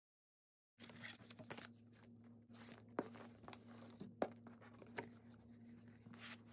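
Faint handling of paper cards and a rigid cardboard gift box, with a few soft clicks and taps, over a low steady hum. It starts after a brief stretch of dead silence.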